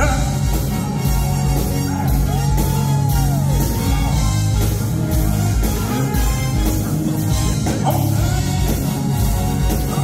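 Live band playing an up-tempo rock and roll number with a steady drum beat, and a man singing over it.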